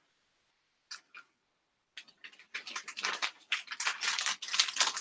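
Packaging material being handled, crinkling and rustling: a few soft clicks at first, then from about two seconds in a dense, irregular crackle.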